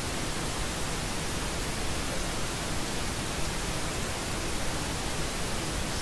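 Steady, even white noise hiss with no change.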